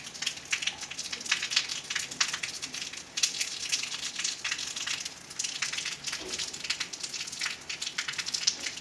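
Continuous dense crackling and pattering, made up of many fine irregular clicks.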